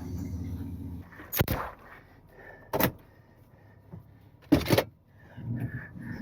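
A vehicle engine running steadily, dropping away about a second in, then three loud sharp bangs about a second and a half apart.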